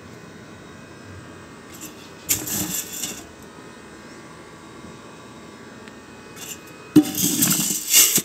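Loose dry grain in a sack rustling and shifting as a metal tin can is pushed and scooped through it, in two bursts, the second opening with a sharp knock of the can near the end.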